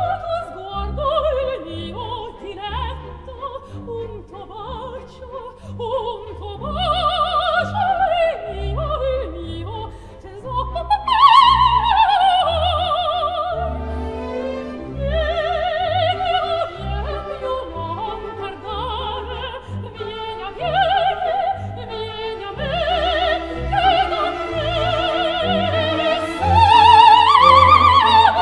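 Operatic soprano singing an aria with a symphony orchestra, her voice carrying a wide vibrato over the strings. She rises to loud sustained high notes about eleven seconds in and again near the end.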